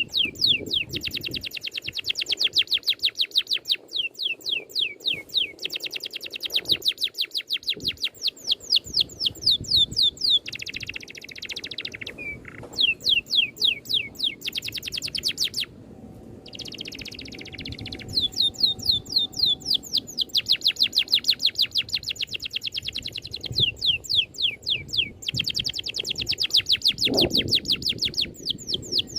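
A songbird's rolling song: long, fast runs of evenly repeated high falling notes, broken by short pauses and a few buzzier phrases.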